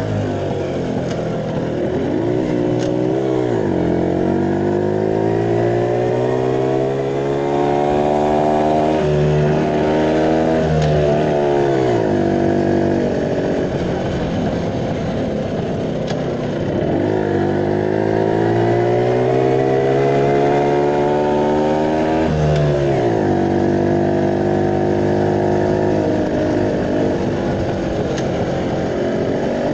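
Classic motorcycle engine under way, heard from the rider's seat. Its pitch climbs over several seconds and then drops suddenly, twice, as it accelerates and changes gear, then holds steady near the end.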